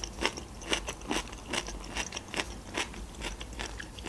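A person chewing tender grilled chicken close to the microphone: soft wet mouth clicks about three times a second.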